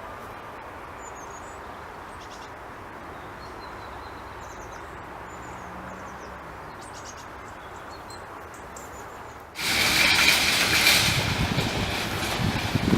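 Steady hum and hiss of commercial laundry plant machinery, with a few faint bird chirps over it. About nine and a half seconds in, it jumps abruptly to a much louder, hissing rush of the same plant noise. The two levels set the noise with and without the acoustic barrier side by side.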